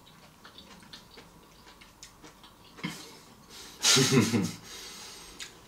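Faint clicks of eating and a fork at a plate, then about four seconds in a short, loud vocal sound from a man.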